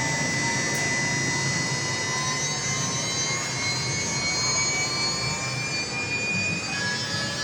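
CNC router milling wood: a steady high-pitched spindle whine over a constant cutting noise, the whine creeping slowly upward in pitch.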